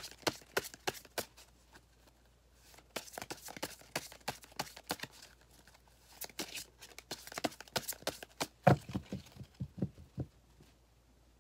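Sticky adhesive tape dabbed onto a velvet cloth and peeled off again to lift dust, making irregular crackly tearing sounds. A few dull knocks come near the end.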